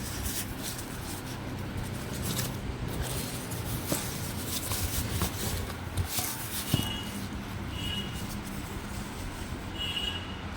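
Steady low rumble of road traffic behind scattered rustling and clicks from handling the alarm kit and its packaging. Three short high beeps come about seven, eight and ten seconds in.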